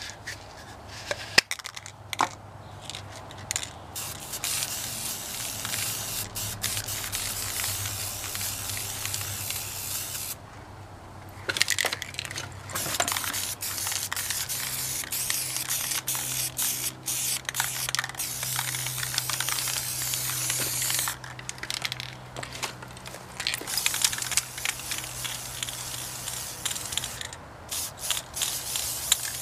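Aerosol spray paint can hissing in long passes, with a short break about a third of the way in and shorter on-off bursts over the last several seconds.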